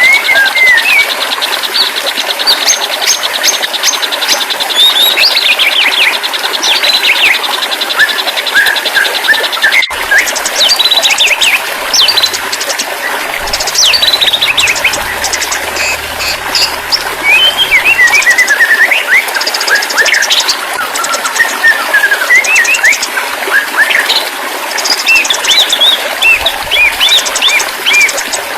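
White-rumped shama song: a continuous run of quick, varied whistled notes and sliding chirps, broken by rapid buzzy trills, over a steady hiss.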